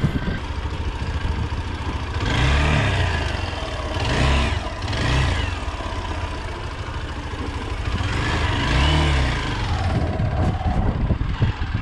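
Motorcycle engine revving up and falling back several times as it is ridden over a bumpy dirt track, the throttle opened and closed in short bursts, over a steady low rumble.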